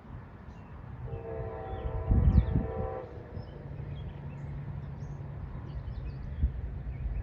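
Train horn sounding one steady multi-note chord for about two seconds, followed by a low steady hum.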